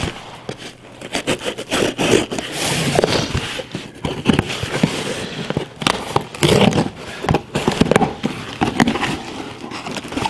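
Case trapper pocketknife slitting the packing tape on a cardboard box, then the tape being pulled off and the cardboard flaps handled: an irregular run of short scratches and rips.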